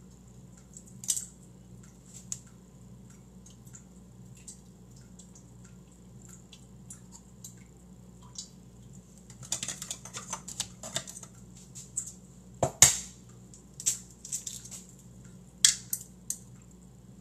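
Eggs being cracked and separated over a stainless steel bowl: light clicks and taps of eggshell, with one sharp knock about thirteen seconds in, over a low steady hum.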